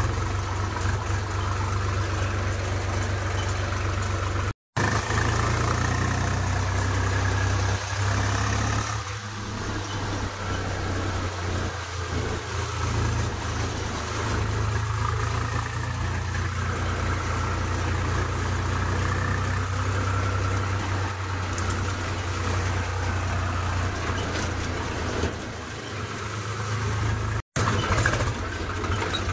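Tractor diesel engine running steadily under way, heard from the driver's seat. The sound cuts out for an instant twice.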